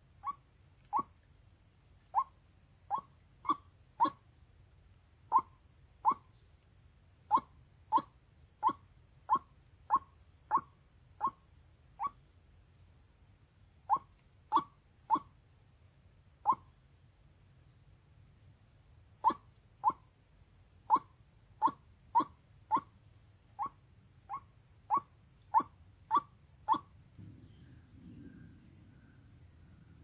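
White-breasted waterhen calling: single short, sharp notes repeated about one and a half a second in runs with two pauses, stopping near the end. A faint steady insect hum lies under it.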